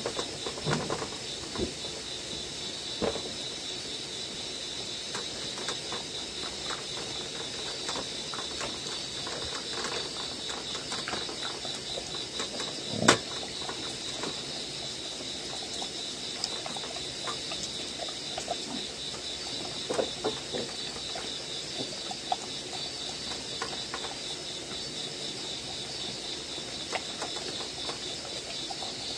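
Dogs eating ramen out of a metal pot, with scattered soft lapping and clinking and one sharp knock about 13 seconds in. Crickets chirp steadily throughout.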